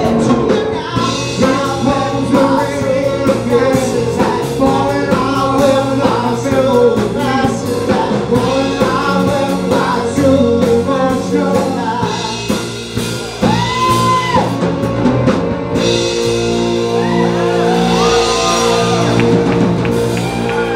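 Live band performance: a male singer belting over keyboard, bass guitar and drum kit with cymbal wash. From about two-thirds of the way in, the singer holds a long note with wide vibrato and the band sustains long chords.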